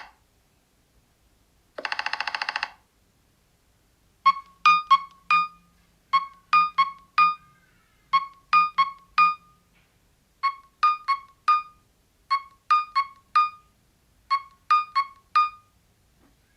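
Nothing Phone (1) ringtone playing from the phone's speaker: a repeating figure of four short electronic piano-like notes, played six times about two seconds apart. About two seconds in, before the ringtone starts, a short buzzy rattling tone sounds once.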